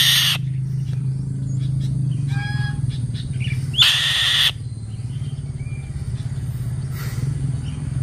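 Black-winged kite screeching: a harsh, hissing screech right at the start and another about four seconds in, with fainter calls between. A steady low hum runs underneath.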